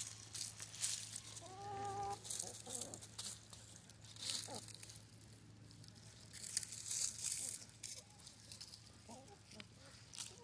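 Chickens scratching and pecking through dry fallen leaves at close range, a crackly rustling in irregular spurts, with a short chicken call about two seconds in.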